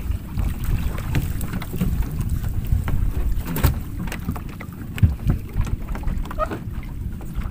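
Wind rumbling on the microphone, with scattered knocks and rustles as a gill net is hauled over the side of a wooden outrigger boat.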